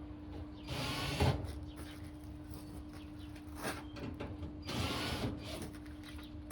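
Work noises from taking apart a dryer: two short rasping mechanical bursts about four seconds apart, with a few clicks, over a steady low hum.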